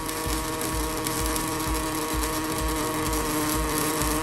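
Robotic gas-shielded wire (MIG/MAG) welding arc buzzing steadily and throwing spatter, with a low pulse about twice a second.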